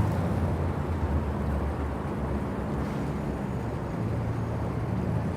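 Steady low rumbling ambience, with no speech over it.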